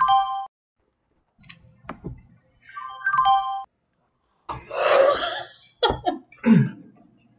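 Trading platform's order-fill alert chime, a quick run of clear tones stepping down in pitch, sounding at the start and again about three seconds in. About five seconds in comes a loud breathy vocal sound, then a short voice sound falling in pitch.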